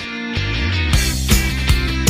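Background music: held chords open it, and a steady beat comes in about a second in.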